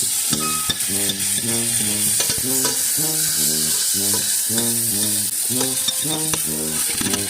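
Food sizzling as it fries in a pan, a steady hiss. Over it a low pitched hum pulses about two to three times a second.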